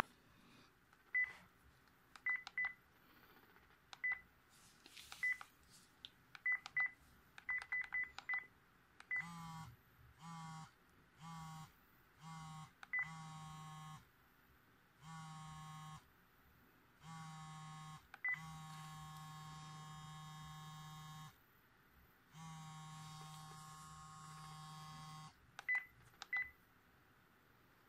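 NEC e313 mobile phone's keypad beeps as keys are pressed, then several of its built-in electronic ringtones playing through the phone's small speaker, with a low hum under the tones. First come short repeated chirps about once a second, then tones about every two seconds, then two held tones about three seconds long. A key beep comes at each change of tone.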